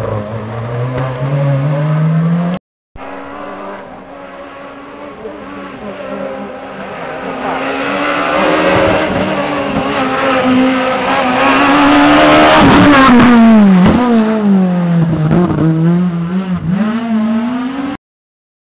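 Rally cars' engines on a tarmac stage. First a Peugeot 207 rally car accelerates past close by, its engine note climbing. After a brief break another rally car is heard approaching, loudest as it passes about two-thirds of the way in, then pulling away with its engine note dipping and rising through gear changes, before the sound cuts off abruptly.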